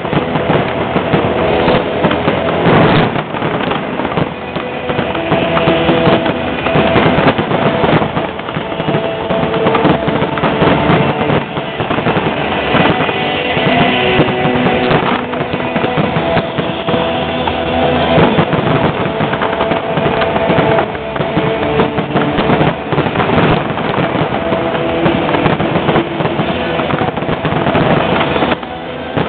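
Aerial fireworks display: a dense, continuous barrage of shell bursts and crackling stars, with music playing underneath.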